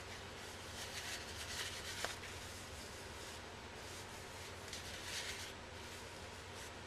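Soft rubbing of a folded white wipe being drawn over freshly shaved skin on the cheek, chin and neck. The rubbing comes in two spells, about a second in and again around five seconds, with a faint click near two seconds.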